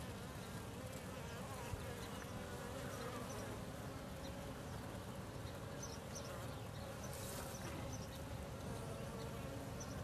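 Steady hum of many honey bees buzzing on an opened hive's comb.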